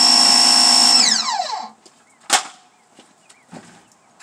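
Pressure washer running with a steady high whine, then shut off about a second in, its pitch sliding down as the motor winds down. A single sharp click follows.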